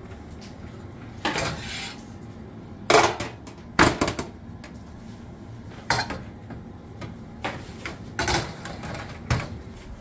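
Metal baking tray clanking against the oven's wire rack and rails as it is handled and slid into the oven: about six sharp clanks, the loudest around three and four seconds in.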